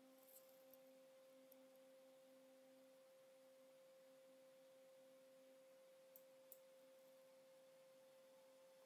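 Near silence, with only a faint steady electronic tone, like a low whine, in the background of the recording.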